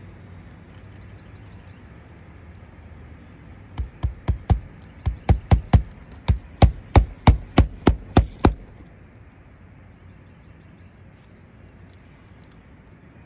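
A hammer driving roofing nails into ridge shingles: a quick run of about fifteen sharp strikes, three or four a second, starting about four seconds in and stopping near the middle.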